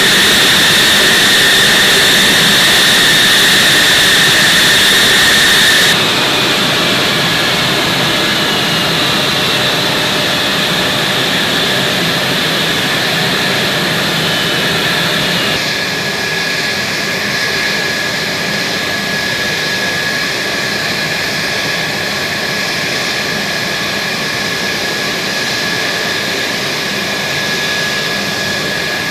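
F-35 fighter's turbofan jet engine running, a loud steady rush with a high whine over it. The sound shifts abruptly twice, about six seconds in and again about halfway, the whine dropping slightly in pitch.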